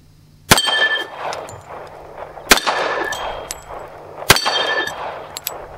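Three shots from a Ruger SR1911 .45 ACP pistol, about two seconds apart, each followed by the clang and ringing of a small steel plate target being hit.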